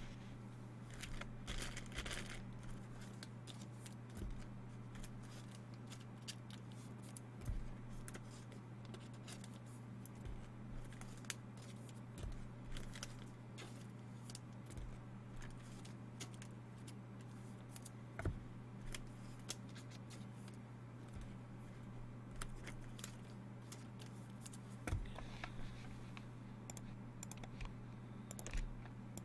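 Scattered light clicks and brief crinkly rustling from work at a desk, with a few soft thumps, over a steady low hum.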